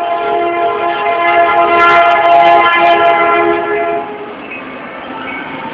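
Norfolk Southern diesel locomotive's air horn blowing a chord of several notes as the train approaches. The horn cuts off about four seconds in, leaving the steady noise of the lead locomotives' engines as they pass close by.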